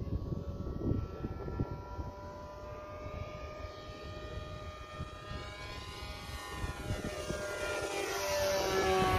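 Electric motor and propeller of a World Models Voodoo Mustang RC warbird (E-flite 525kv motor) whining in flight. It grows louder as the plane flies in for a close pass, and the pitch starts to drop near the end as it goes by.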